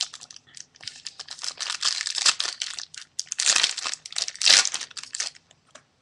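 Foil booster pack crinkling and tearing as it is worked open by hand, an irregular stretch of crackling that is loudest past the middle and dies away near the end.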